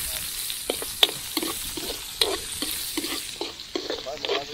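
Papaya sautéing in hot oil in a pan, sizzling steadily, while a ladle stirs it with irregular scrapes and knocks against the pan about three times a second.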